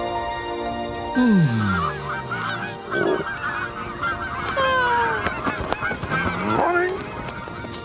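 Cartoon flock of birds honking and squawking in many short overlapping calls, with a couple of longer falling cries in the middle. Music plays for about the first second, and a deep falling glide comes just before the calls start.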